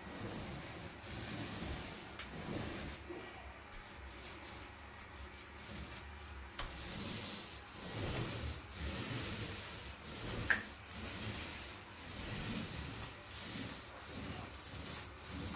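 Paint roller on an extension pole rolling undercoat across a plasterboard ceiling: a rubbing swish that swells and eases with the strokes. A single sharp click comes about ten and a half seconds in.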